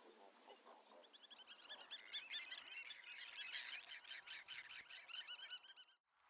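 Faint chorus of many birds chirping: dense, overlapping, high-pitched calls that build about a second in and cut off abruptly near the end.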